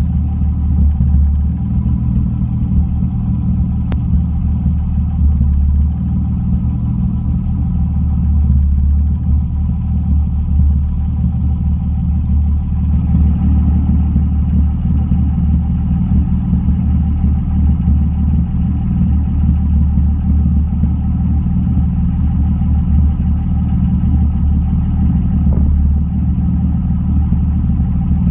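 BMW M3 engine idling steadily, a low running note with a slight flutter, at an idle the owner calls not perfect.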